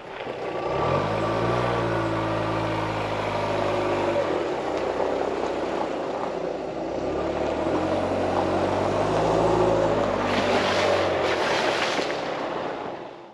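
An engine running, its pitch sliding as it swells twice before fading out near the end.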